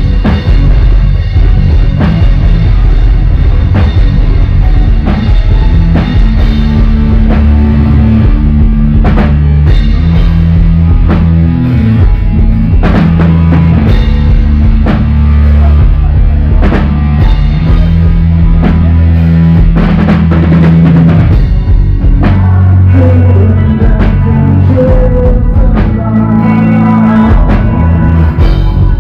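Loud rock music: a drum kit with a heavy bass drum hitting steadily over sustained bass notes and guitar.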